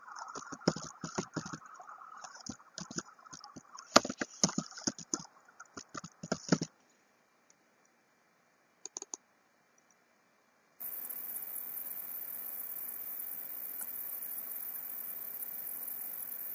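Computer mouse clicks and scroll-wheel ticks in quick irregular runs for about six seconds, with two faint clicks a little later. About two thirds of the way through, a steady hiss starts and holds.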